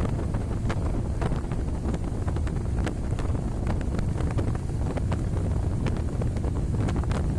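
Wind buffeting the camera microphone: a steady, loud low rumble with frequent crackling pops.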